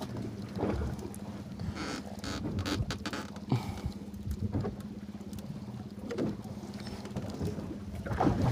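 A fishing boat's engine hums steadily at one low pitch, with scattered light knocks and some water noise around it.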